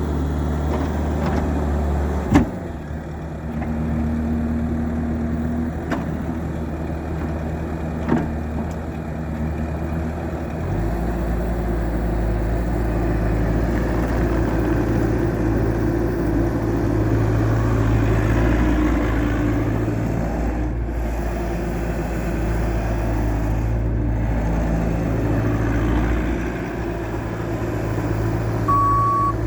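Bobcat T650 tracked skid steer's diesel engine running steadily, its note shifting to a deeper, heavier sound about a third of the way through. Two sharp knocks come early on the first stretch, and the reversing alarm starts beeping just before the end.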